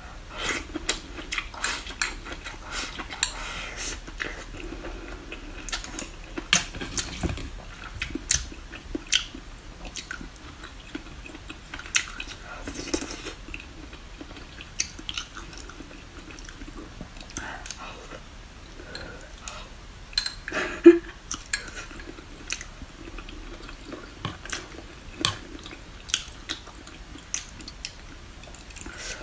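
Eating at close range: chewing, with chopsticks clicking and tapping against a porcelain rice bowl and serving dishes, one sharp click louder than the rest a little after twenty seconds.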